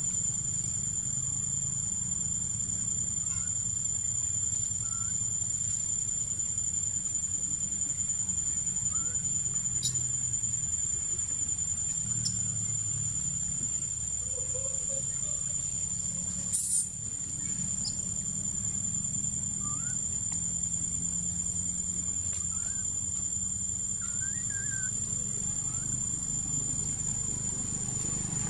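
Steady high-pitched drone of insects in the trees, with a low steady rumble underneath and a few faint short chirps.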